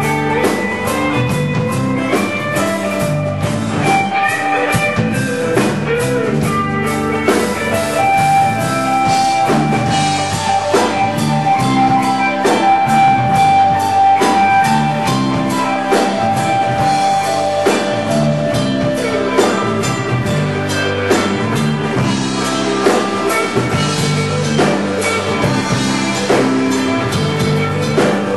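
Indie rock band playing live: guitars over a drum kit, with a long held note through the middle.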